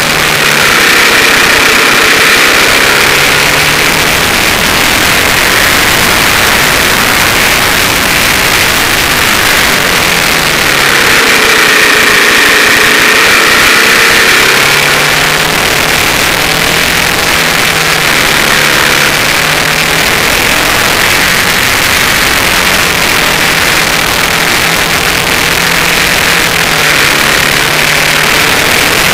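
Suzuki TL1000S's 90° V-twin engine running at speed on track, its pitch rising and falling several times with the throttle. Heavy wind rush over the bike-mounted microphone.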